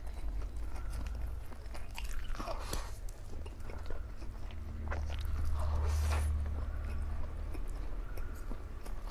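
A man slurping up and chewing mouthfuls of sauced Samyang spicy black bean noodles: wet slurps and mouth clicks, the longest slurp about halfway through.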